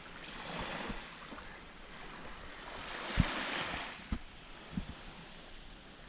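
Small sea waves washing, rising and falling twice, with wind on the microphone and a few short low thumps, the loudest about three seconds in.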